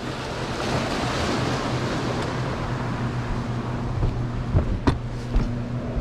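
Turbulent tailwater rushing and boiling below a dam where a turbine is running, a dense steady noise of churning water with a low steady hum beneath it. A few sharp knocks come about five seconds in.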